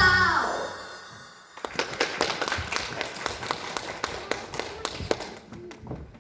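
The last chord of the song dies away, sliding down in pitch. About a second and a half later, a small audience begins clapping, a sparse, uneven applause that thins out near the end.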